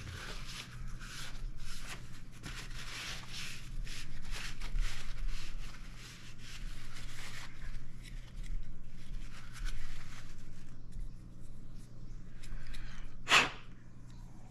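Paper napkin rubbing and rustling as it wipes a rebreather's plastic DSV (dive/surface valve) dry. It gives way to softer handling noises, then a single sharp click near the end. A steady low hum runs underneath.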